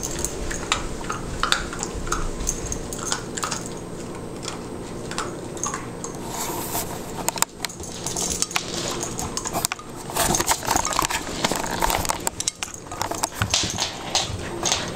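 Standard poodle puppy working a black rubber Kong food-dispenser toy on a hardwood floor: irregular light clicks, knocks and rattles as the toy is nosed, chewed and rolled about, with kibble knocking inside it.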